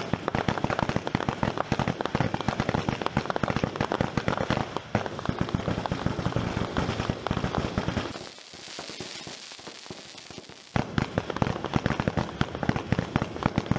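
Fireworks crackling in a dense, rapid run of pops. About eight seconds in, the popping gives way to a softer hiss for two or three seconds, then starts again.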